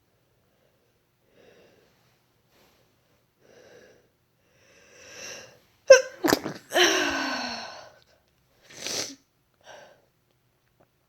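A young woman's induced sneeze. Faint breaths build to an audible inhale, then about six seconds in comes a sharp sneeze burst trailing into a drawn-out voiced sound that falls in pitch. A shorter breathy burst follows near the end.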